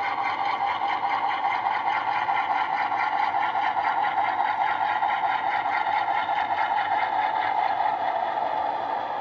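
Diesel engine sound from an HO-scale model locomotive's DCC sound decoder, played through its small onboard speaker. It runs steadily with an even, throbbing beat as the locomotive rolls along at low speed.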